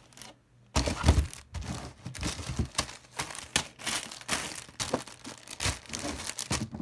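Plastic packets of slime add-ins, pom-poms and foam beads, crinkling and rustling in quick irregular crackles as hands feel around in them, starting about a second in.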